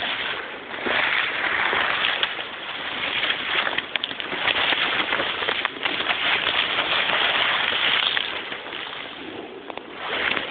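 Leaves and brush rustling and scraping against the camera as it is pushed through dense undergrowth, with scattered crackles of twigs and foliage.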